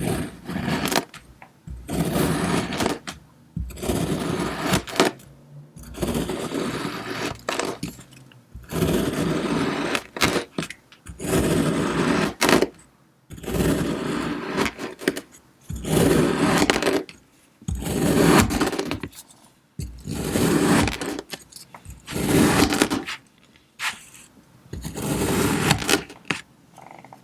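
Kinetic sand being cut in repeated slices, each cut about a second long, coming roughly every two seconds, a dozen or so in all.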